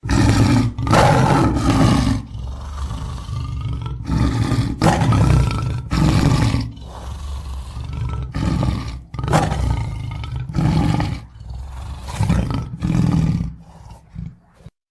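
A big cat roaring and growling in a series of loud, deep calls with short pauses between them, stopping abruptly near the end.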